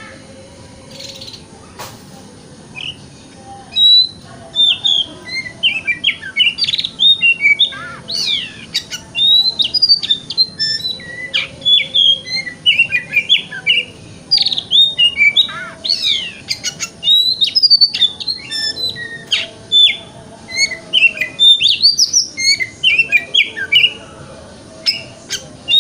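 Oriental magpie-robin (kacer) singing a fast, varied song of loud whistles, rising and falling sweeps and chirps, in the 'wikplong' style. The song starts about four seconds in.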